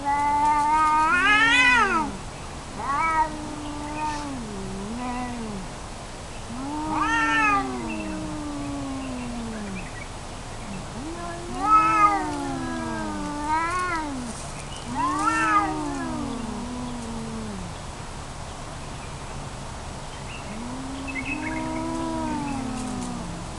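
Tomcats yowling at each other in a territorial standoff: a series of long, wavering yowls that rise and fall in pitch, one every two or three seconds, loudest near the start and about halfway through.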